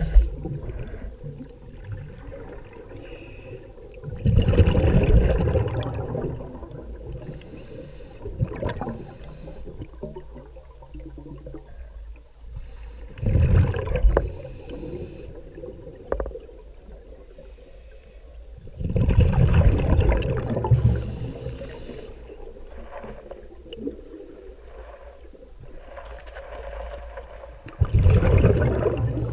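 Scuba regulator breathing underwater: four loud bubbling exhalations a few seconds apart, with fainter hissing inhalations between some of them.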